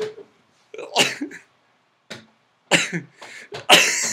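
A man coughing and hacking in several harsh bursts, the main ones about a second in, near the middle, and near the end.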